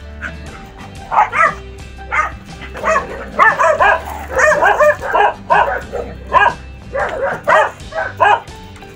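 Several dogs play-fighting, barking and yipping in quick short bursts, busiest around the middle.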